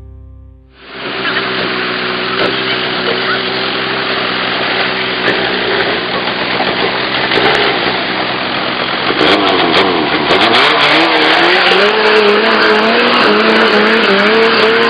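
Vehicle engine running under steady road noise, its pitch rising and falling from about nine seconds in as it revs, with scattered rattles.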